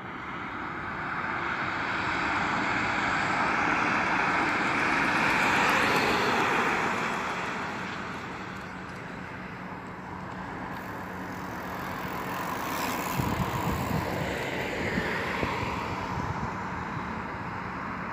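Street traffic: a vehicle passing, swelling to a peak about six seconds in and fading, with wind buffeting the microphone in the last few seconds.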